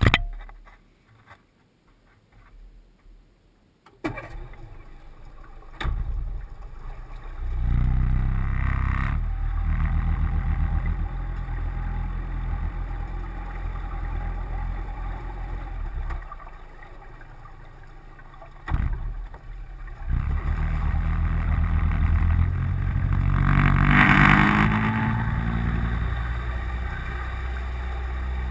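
Yamaha F50 four-stroke outboard motor running as the boat moves, with engine speed rising briefly a little past two-thirds of the way through. The first few seconds are nearly quiet after a single knock.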